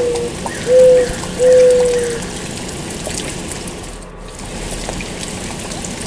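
Mourning dove singing its low, mournful song: the end of a long coo, then two more coos about a second apart, each sliding slightly down in pitch, over a steady background hiss.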